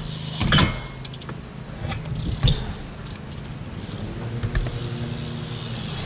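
BMX bike riding on a wooden ramp: tyres rolling, with two loud knocks about half a second and two and a half seconds in and smaller clicks between. A steady low motor hum runs underneath.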